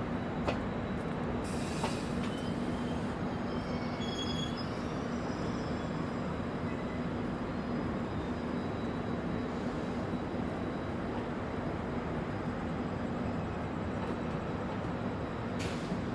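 WAP1 electric locomotive running with a steady, constant hum. A short hiss comes about two seconds in, and faint thin squeals about four seconds in.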